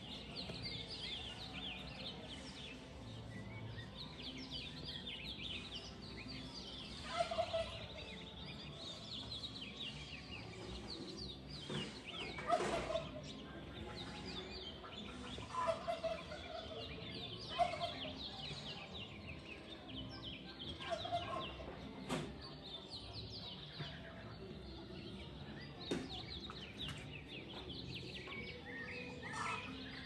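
Birds calling: a steady, dense chatter of high chirps, with about six short, louder and lower calls scattered through.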